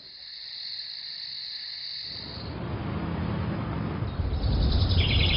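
Steady high-pitched insect chirring for about two and a half seconds, then a low rumble that grows louder, with quick high chirps coming in near the end.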